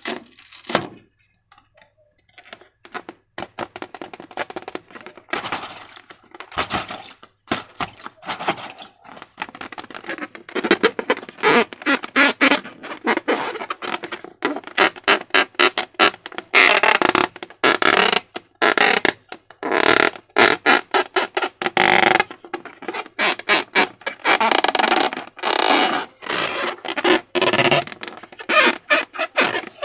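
Wet, sticky slime squelching, with many quick irregular squishes and pops as it is pressed and stretched by hand; it gets denser and louder after about ten seconds.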